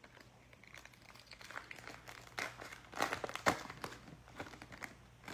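Gloved hands crinkling and tearing open the wrapper of an NBA Hoops Premium Stock trading-card pack: an irregular run of crinkles and crackles, loudest about three seconds in.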